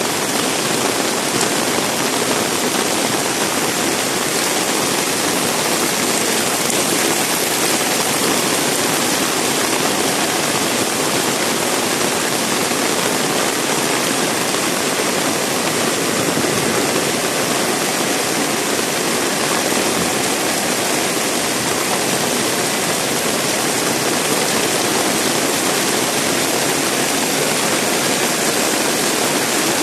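Heavy rain pouring down, a steady dense hiss that does not let up.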